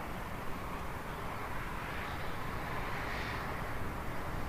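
Jet airliner engines heard from outside, a steady rushing noise that shifts slightly in pitch.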